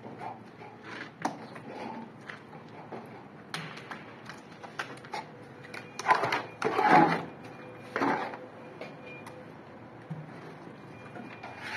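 Plastering tools scraping and clicking while wet gypsum plaster is scooped up and worked: irregular short scrapes and light knocks, with the loudest scrapes about six to eight seconds in.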